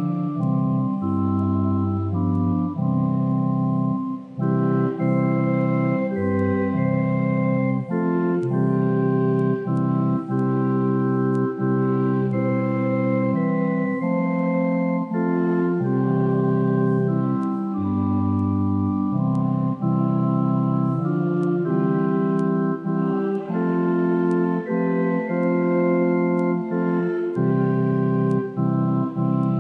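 Church pipe organ playing a slow hymn in sustained chords that change every second or two, with deep bass notes coming in a few times.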